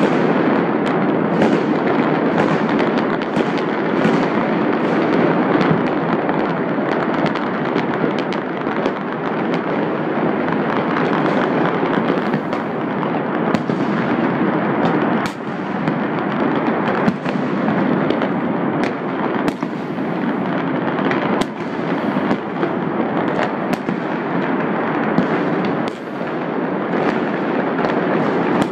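Fireworks and firecrackers going off all over the city at once: a continuous dense crackle with many sharper bangs scattered through it, none letting up.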